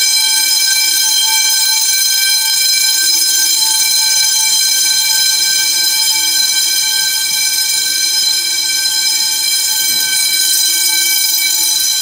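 Electric fire alarm bells ringing loudly and continuously, a steady metallic ring with no breaks. The fire alarm system has been put into drill mode from its control panel.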